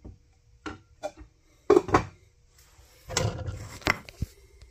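Kitchen clatter: a wooden spoon and cookware knocking and clunking against a pan and countertop, a few scattered knocks with louder clusters about two seconds in and again after three seconds.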